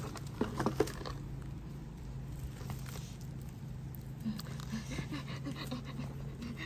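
A few sharp clicks about half a second in, over a low steady hum. From about four seconds in, a series of short, faint squeaky calls from a small animal.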